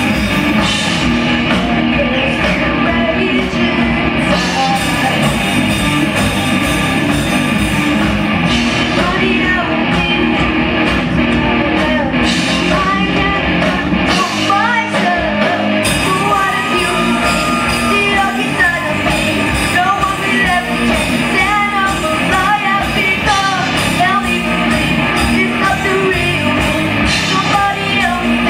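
Rock band playing live, with electric guitar, bass guitar, drums and a singing voice. About halfway through, the deep low end drops out for a moment before the full band comes back in.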